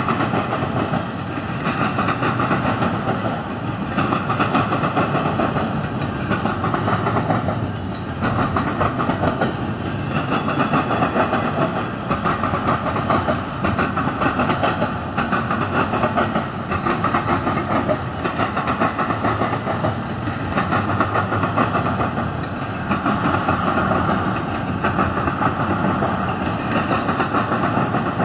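Double-stack intermodal freight cars of a CN train rolling past, their steel wheels clattering on the rails in a continuous rumble that swells and eases every couple of seconds.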